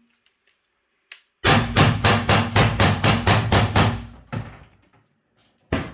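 VKS less-lethal launcher firing a rapid semi-auto string of about a dozen shots, roughly five a second, cycling 10.5 g BK Ultra shaped rounds without a stoppage. A light click comes just before the string, and two more single sharp reports follow it.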